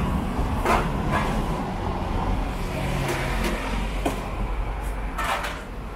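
Road traffic, cars and motorbikes running along the street, a steady low rumble, with a few brief knocks and clatters on top.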